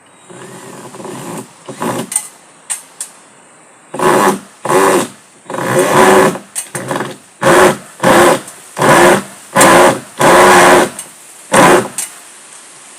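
Cordless drill or impact driver run in a dozen or so short bursts, each under a second, driving screws. The bursts come closer together and louder from about four seconds in.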